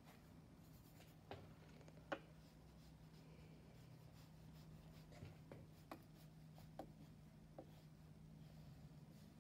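Faint sounds of a watercolour brush working paint over paper and in a plastic palette, with a handful of small clicks and taps, over a steady low hum.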